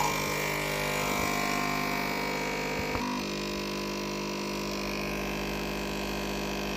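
Nespresso capsule coffee machine's pump running with a steady vibrating hum as it brews coffee, its tone shifting slightly about three seconds in.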